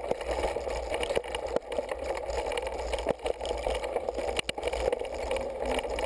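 Mountain bike ridden along a dirt trail, heard from a camera on the bike or rider: a steady rush of wind on the microphone and tyre noise, with scattered knocks and rattles from the bike over bumps.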